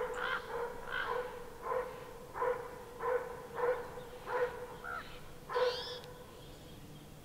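An animal calling over and over at a steady pace, about three calls every two seconds, each one short.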